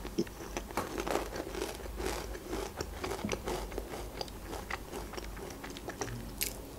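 Crunching and chewing of Pringles paprika potato chips, many short crisp crackles, thinning out later as she bites into and chews a soft chocolate-filled Barni sponge cake.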